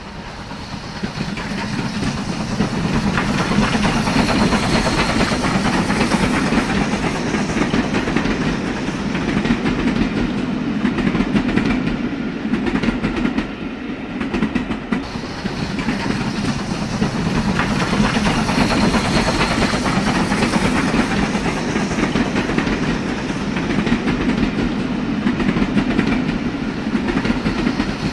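A train running on rails, a steady rumble with the clickety-clack of wheels over the rail joints, swelling and easing as it goes.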